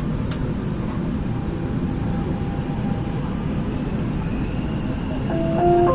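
Dubai Metro train running steadily, heard from inside the car as it pulls out of the station, with a faint rising whine as it picks up speed. Near the end a stepped chime sounds, the signal before the next-station announcement.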